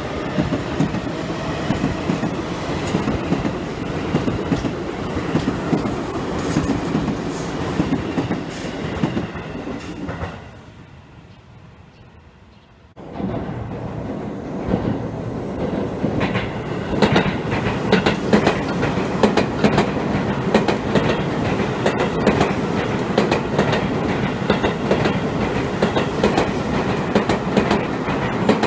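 Seibu 20000 series electric commuter train running past, wheels clattering over rail joints; the sound drops away briefly about ten seconds in, then another pass starts with the same clatter growing busier.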